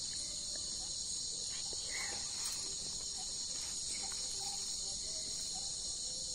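Steady high-pitched chirring chorus of night insects.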